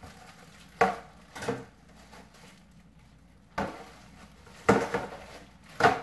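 Plastic Ultimate discs in thin plastic bags knocking and clacking against one another as they are handled and stacked: about five sharp knocks spread through, with quieter plastic handling noise between.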